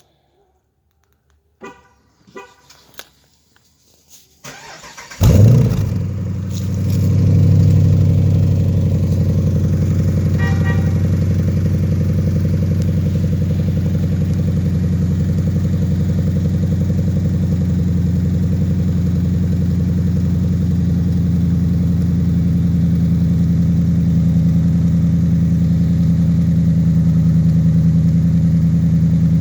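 2011 Jeep Grand Cherokee's 5.7 Hemi V8 breathing through a Hooker BlackHeart cat-back exhaust: a few faint clicks, then the engine starts about five seconds in with a brief flare and settles into a steady idle with a deep tone.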